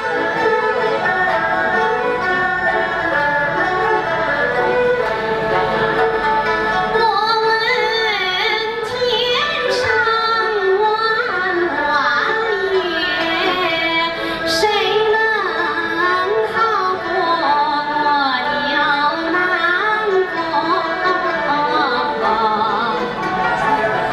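A Chinese traditional orchestra of erhu, pipa and yangqin plays. About seven seconds in, a woman's solo voice enters, singing a Chinese song with wavering vibrato over the accompaniment.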